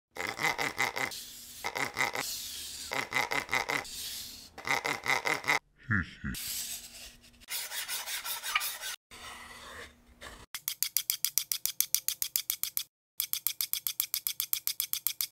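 Woodworking sound effects cut to stop-motion: repeated rasping strokes of a hand tool on wood in short bursts, then from about two-thirds of the way in two runs of rapid even clicking, about eight a second.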